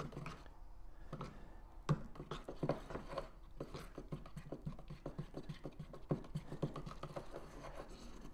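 A screwdriver stirring thick, settled enamel paint in a small metal tin: irregular scraping and light knocks of the shaft against the tin's sides and bottom, with one louder knock about two seconds in.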